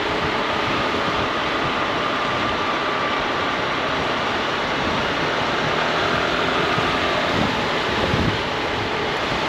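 Steady wind rush and road noise from riding a Honda ADV 350 scooter, with the scooter's single-cylinder engine running faintly beneath.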